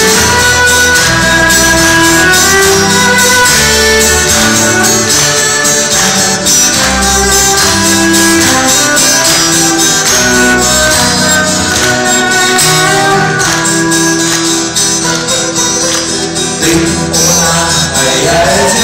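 A rock band playing an instrumental passage, with guitar, a melodic lead line in held notes, and steady drums and tambourine.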